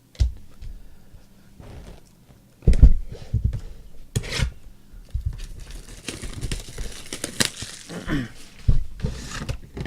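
Trading-card pack wrappers crinkling and tearing as packs are opened, with irregular small knocks and rustles of cards and wrappers being handled, and a longer stretch of rustling in the middle.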